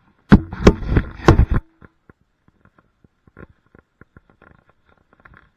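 A quick burst of hard knocks and clatter, about five sharp hits packed into just over a second, followed by faint scattered taps.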